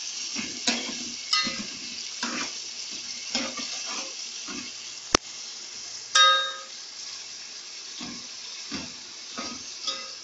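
Sliced onions sizzling in hot oil in a metal pot as they fry toward light brown, stirred with a spatula that scrapes and knocks against the pot about once a second. A sharp click comes about halfway, and a loud ringing metal clang about six seconds in.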